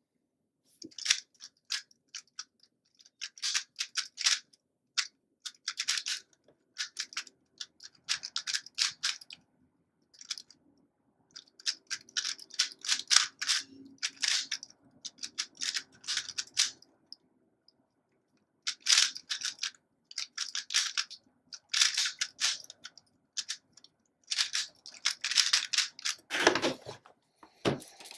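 3x3 Rubik's cube being turned fast in a speedsolve: rapid plastic clicking in bursts of turns with short pauses between them, and a heavier thump near the end.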